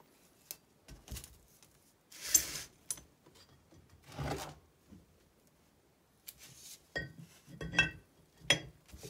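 Fiat 126 crankshaft and flywheel handled by hand: scattered scrapes and knocks as the crank is set down and picked up, then several sharp, ringing metal clinks near the end as the flywheel is brought against the crankshaft.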